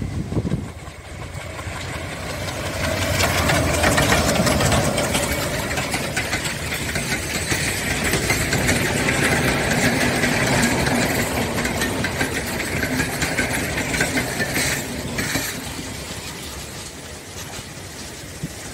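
Diesel locomotive hauling a passenger train past on the adjacent track: the engine grows louder as it comes up and passes, then the coaches' wheels run by on the rails with a few sharp knocks and the sound fades as the train moves away.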